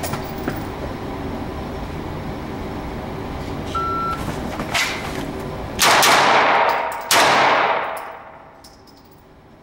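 A shot timer beeps once, and over the next three seconds or so a Walther PPQ 5-inch pistol fires a Mozambique drill on an indoor range: three shots, two to the chest and one to the head. The shots are loud, echo off the range walls, and the last comes about 3.3 seconds after the beep.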